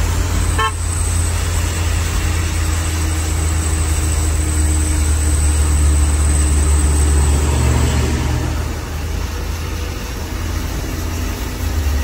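Truck engine running steadily, heard from inside the cab on the move, its drone easing off after about eight seconds. A brief horn toot sounds about a second in.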